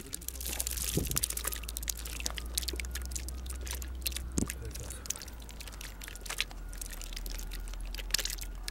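Fast, irregular crackling clicks with small drips and splashes from a plastic tub of freshly caught sardines and mackerel in frothy water, over a steady low rumble.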